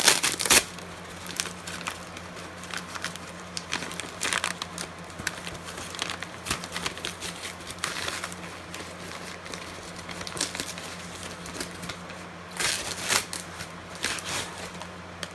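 Packaging being handled and unwrapped from a small shipping box: crinkling and rustling with scattered clicks and taps, louder at the start and again near the end.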